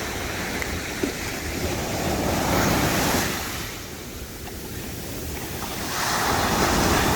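Ocean surf breaking and washing up the beach. The rush swells, fades about halfway through, then builds again, with wind buffeting the microphone.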